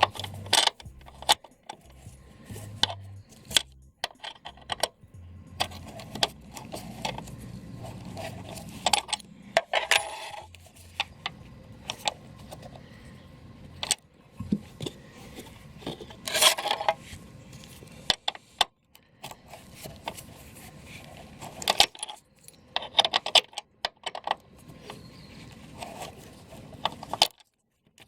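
Irregular metallic clinks, taps and scrapes of hand tools on metal, a few of them ringing briefly, while a long Torx screw is worked loose.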